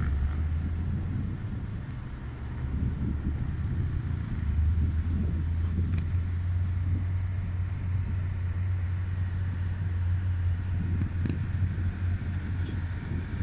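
Heavy diesel engines running steadily at a Caterpillar excavator loading coal into a Tata dump truck, with a deep rumble that gets louder about two and a half seconds in.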